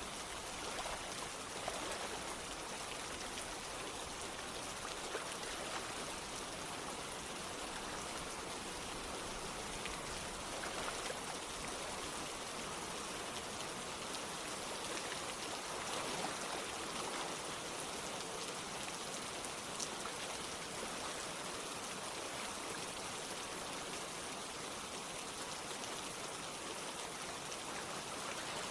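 Steady rain mixed with running water: an even hiss with scattered raindrop taps.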